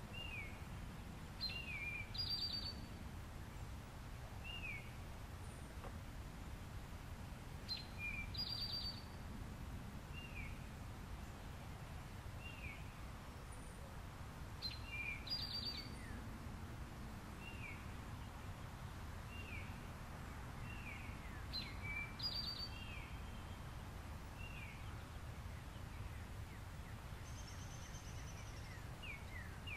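Wild birds singing: short falling notes repeat every couple of seconds, and a brighter, higher phrase of quick notes comes about every seven seconds, over a low steady outdoor rumble.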